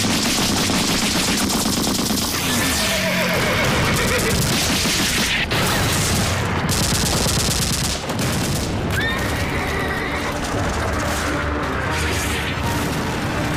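Battle sound effects: a steady din of gunfire and explosions, with horses whinnying a few times in the second half as a horse-drawn cart is whipped on.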